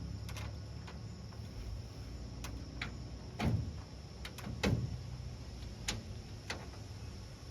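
Scattered sharp clicks and two louder knocks, about a second apart near the middle, from hands-on work fitting clips and sheet panels on a race car body, over a steady low hum.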